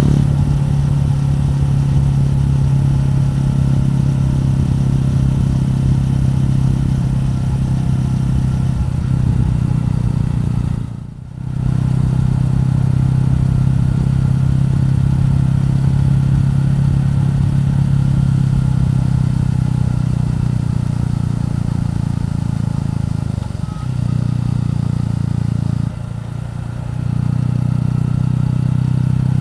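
Suzuki Gixxer 150's single-cylinder engine running steadily under way, heard from on the bike. The note drops out briefly about a third of the way in and dips twice near the end.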